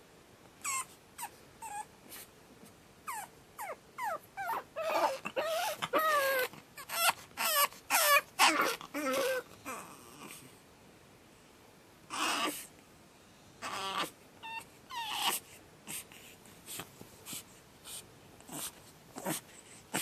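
Pug puppy screaming and whining in its crate: a string of short, high-pitched cries that mostly fall in pitch. They come thickest and loudest a few seconds in, pause briefly near the middle, then start again. This is a new puppy crying at being crated alone on its second night.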